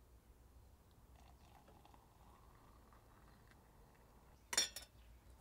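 Water poured from a stainless saucepan into a narrow cylinder, a faint trickle with a slightly rising tone. About four and a half seconds in comes a brief clatter of a few quick knocks, the loudest thing.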